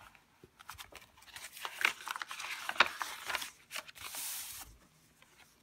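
Thick paper pages of a handmade junk journal being turned and handled: rustling with a few sharp snaps and clicks, then a brief sliding hiss of paper near the end.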